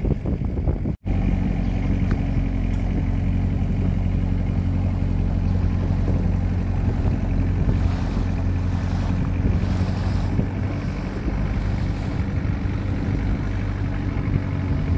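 Longtail boat's engine running steadily under way, a low drone, with water rushing past the hull. There is a short break in the sound about a second in.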